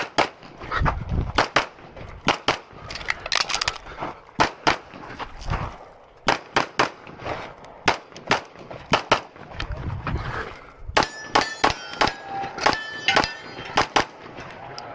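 Semi-automatic pistol fired in rapid pairs and strings during a practical-shooting stage run, dozens of shots in all. Near the end, hits on steel targets ring out with a metallic clang between the shots.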